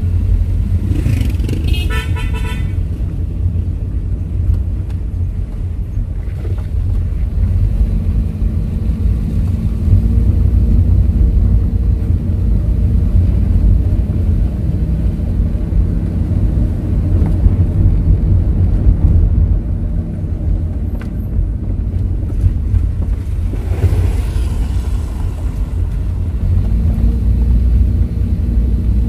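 Car engine and road noise heard from inside the cabin while driving, a steady low rumble whose engine pitch shifts now and then. A short vehicle horn toot sounds about two seconds in.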